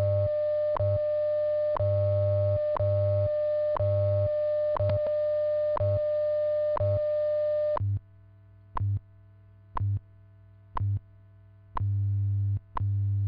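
WWV time-station broadcast: a steady 600 Hz audio tone with a short tick every second and the 100 Hz time-code pulses underneath. The tone cuts off about eight seconds in, leaving the once-a-second ticks and the time-code pulses ahead of the next minute's voice announcement.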